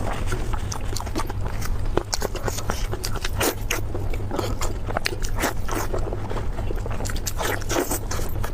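Close-up eating sounds: biting and chewing fatty meat, with irregular wet clicks and crunches over a steady low hum.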